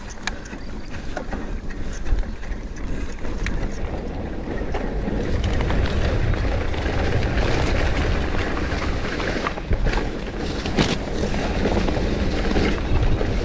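Santa Cruz Megatower mountain bike riding down a dirt trail: a steady rumble of tyres and wind on the microphone, with scattered sharp knocks and rattles from the bike. The rumble grows louder about five seconds in.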